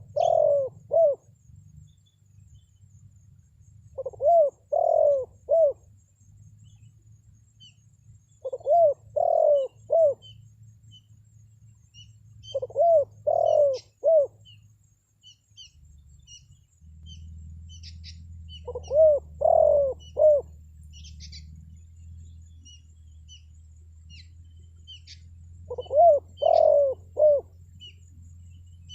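Spotted dove cooing: six phrases of three or four coos each, spaced a few seconds apart. Faint high chirps of small birds and a low hum are heard between phrases.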